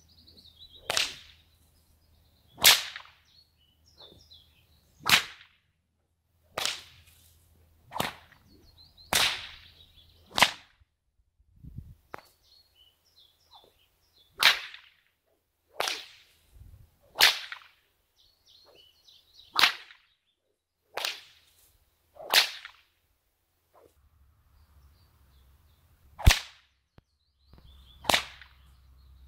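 Test cracks from a newly made 9-foot leather bullwhip: a string of about fifteen sharp cracks, one every second or two, with two short pauses between runs.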